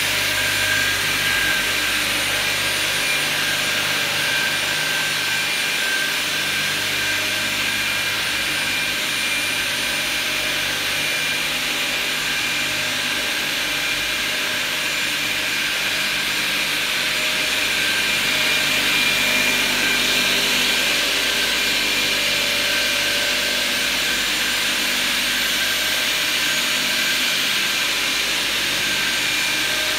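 Rudolf Kleinhenz multi-blade crosscut saw running with no wood being cut: a steady whir with thin high whining tones over a low hum.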